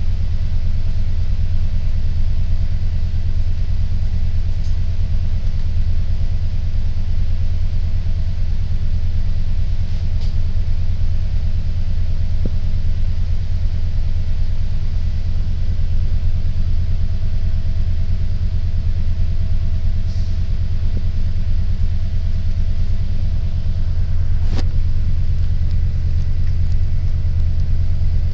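A city transit bus's engine idling while the bus stands at the stop: a steady low rumble. A few light clicks sound over it, the sharpest about three-quarters of the way through.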